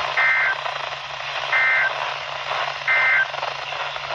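Emergency Alert System end-of-message tones on a NOAA Weather Radio broadcast: three short bursts of two-tone digital data, each about a third of a second and evenly spaced a little over a second apart, marking the end of the flash flood warning. Steady radio hiss runs underneath.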